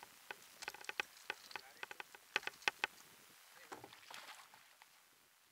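Irregular sharp clicks and small metallic clinks from a plastic popper lure and its treble hooks being handled and worked free, then a brief soft rustle about four seconds in.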